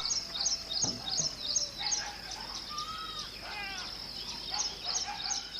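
Birds chirping and calling, with a run of quick high chirps repeating a few times a second and other short varied calls among them.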